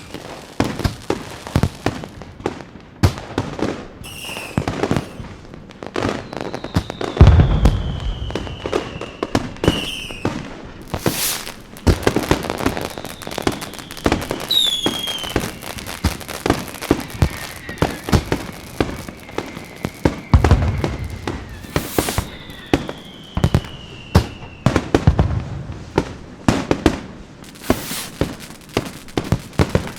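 Fireworks going off in a dense barrage: rapid crackling and popping throughout, several deep booms, and whistling rockets whose shrill whistles fall slowly in pitch.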